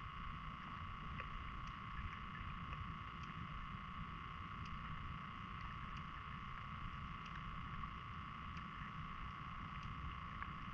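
Underwater sound through a GoPro's waterproof housing: a low, muffled rumble of moving water with a steady high-pitched whine over it and scattered faint ticks.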